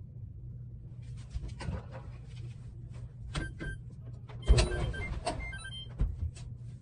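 Knocks and clatter of household product bottles and an aerosol can being handled and set down on wire shelving and a washing machine lid. The loudest knock comes about four and a half seconds in, with a short metallic ring. A steady low hum runs underneath.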